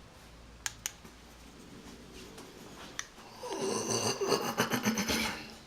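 A few sharp clicks, then a loud, harsh, rattling growl lasting about two seconds from just past the middle: the 'chainsaw beast' noise.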